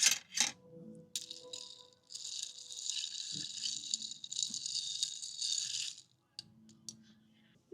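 Iced passion fruit cold brew being mixed in its cup: a few sharp clinks, then ice rattling hard against the cup for about four seconds, stopping about six seconds in.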